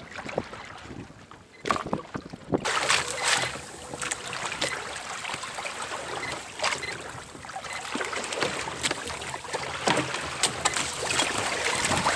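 Water splashing and rushing along the hull of a Hobie Adventure Island sailing kayak under way on choppy sea, with wind buffeting the microphone. The sound steps up abruptly about two and a half seconds in and stays a dense, steady wash with frequent sharp splashes.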